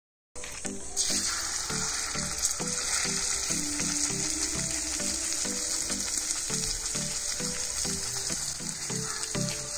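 Marinated chicken pieces frying in hot oil in a kadai: a steady, dense sizzle. Background music with a rhythmic low pattern plays under it.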